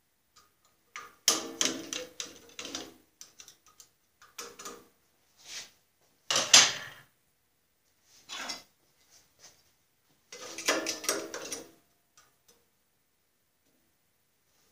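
Small metal bandsaw parts and hand tools clinking and clattering as they are handled, picked up and set down, in about six short bursts of a second or less. Some strikes ring briefly, and the loudest comes about six and a half seconds in.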